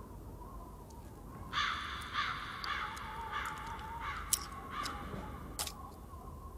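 A crow cawing about six times in a row, harsh calls roughly half a second apart, with two sharp clicks near the end.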